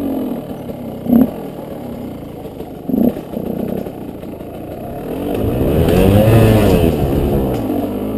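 KTM 125 EXC two-stroke single-cylinder dirt-bike engine under way on a trail, its note rising and falling with the throttle. Two sharp knocks come about one and three seconds in, and from about five seconds in the engine revs up and back down over two seconds or so, the loudest part.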